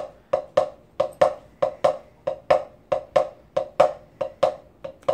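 Drumsticks tapping a practice pad in a shuffle (swung dotted-eighth) rhythm: even-tempo strokes, about three a second, falling in long-short pairs.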